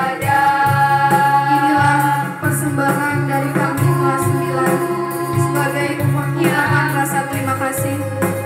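A choir singing a slow song over instrumental backing, with steady bass notes and a light, regular percussion beat.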